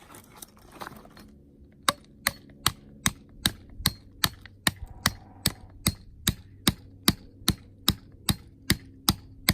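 A hammer pounding a 3/4-inch plastic conduit pipe into the ground, in a steady run of sharp blows about two and a half a second, starting about two seconds in.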